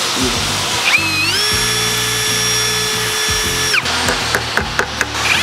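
Ridgid drill with a small bit spinning up about a second in, running at a steady whine for nearly three seconds, then stopping. It is drilling out something stuck inside a small hole.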